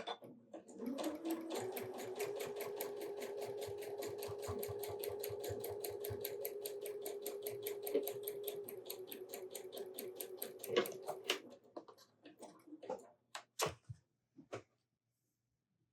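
Electric sewing machine stitching a seam: the motor spins up about a second in, then runs steadily with an even needle rhythm of about four stitches a second, stopping about eleven seconds in, followed by a few clicks.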